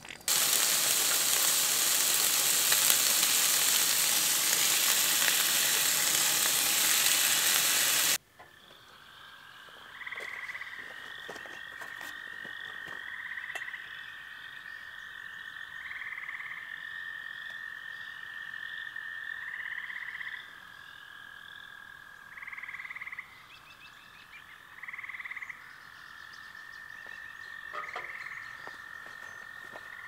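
Loud steady sizzle of food frying in a pan for about eight seconds, cutting off abruptly. Then a night chorus of frogs: a steady high trill with a louder call every few seconds and chirping above it.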